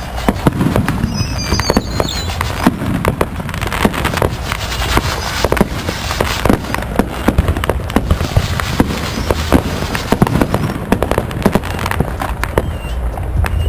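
Fireworks going off in rapid, overlapping succession: a continuous run of pops, bangs and crackles from aerial shells and rockets, over a steady low rumble, with a brief high whistle about a second in.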